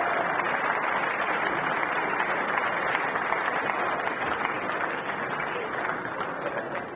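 Arena crowd applauding: dense, steady clapping that starts to die down near the end.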